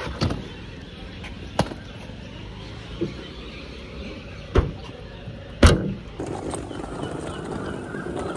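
Vehicle and traffic noise with about five sharp knocks and thuds, the loudest two in the second half. About six seconds in the background noise gets louder.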